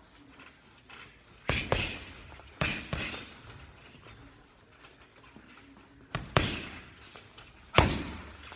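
Boxing gloves punching a hanging heavy bag. The thuds land mostly in quick pairs, about a second and a half in, near three seconds and around six seconds, with a single hard punch near the end.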